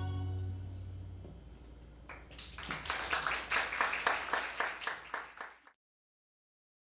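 A band's sustained closing chord, with a low bass note under it, dies away; about two seconds in, the audience breaks into applause, which cuts off suddenly near the end.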